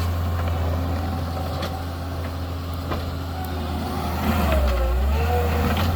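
Takeuchi tracked skid steer's diesel engine running steadily under work. In the second half a whine rises and falls in pitch over the engine.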